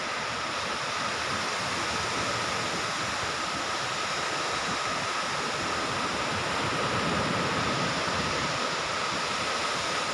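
Ocean surf breaking steadily on a sandy beach: a continuous wash of waves with no single crash standing out.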